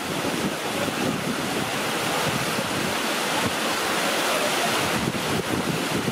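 Wind buffeting the microphone: a steady rushing noise with an uneven, gusty low rumble.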